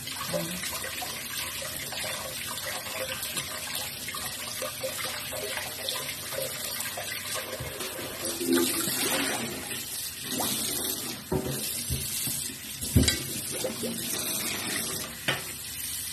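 Kitchen tap running into a stainless steel sink while potatoes are rubbed and rinsed by hand in a pot of water. A few sharp knocks come about two-thirds of the way through.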